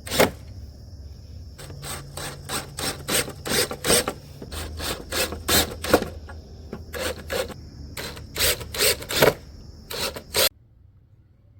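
Hand strokes rubbing across wood, irregular at about two a second, cutting off abruptly near the end.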